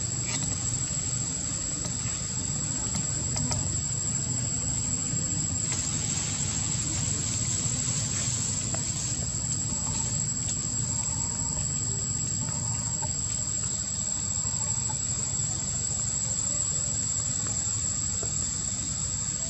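Insects droning: one steady high-pitched tone that does not let up, over a low steady rumble.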